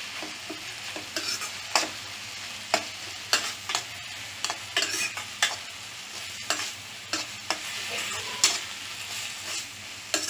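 Ridge gourd pieces sizzling in oil in a pan while a spatula stirs the chilli powder through them, scraping and knocking against the pan at irregular moments.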